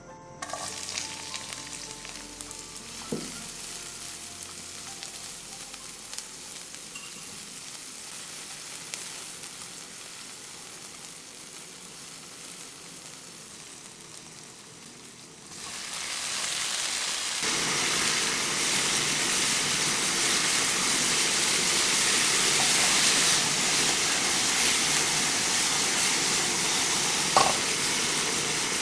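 Garlic, scallion and red chili sizzling in hot oil in a nonstick frying pan, stirred with a silicone spatula that knocks the pan now and then. About halfway through, with the heat at maximum and eggplant and green beans in the pan, the sizzling turns much louder and stays loud.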